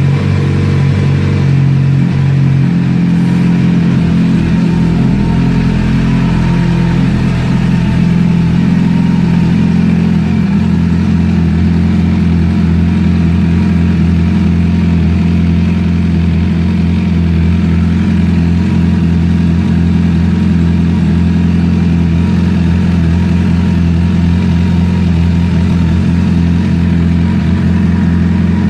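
Suzuki Bandit 600's inline-four engine running: its note shifts over the first few seconds, then settles into a steady idle. It carries the engine clatter (claquements) the owner finds suspect and cannot identify.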